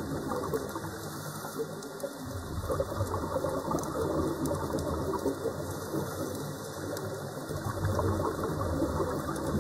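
Underwater sound of a scuba diver's regulator: exhaled air bubbling and gushing out in a continuous, uneven rush, a little louder near the end.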